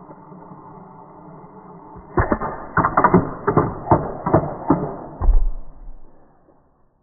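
A quick run of hard knocks and clacks, about eight in three seconds, ending in a dull thump, after a faint steady hum.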